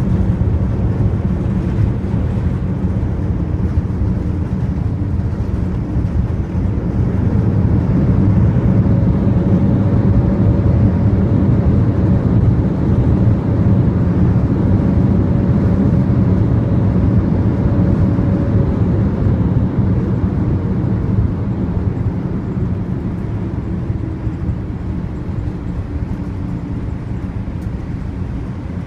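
Boeing 787-8 cabin noise on the landing rollout: a steady heavy rumble from the wheels on the runway, with engine noise that swells about eight seconds in and dies down after about twenty seconds as the airliner slows.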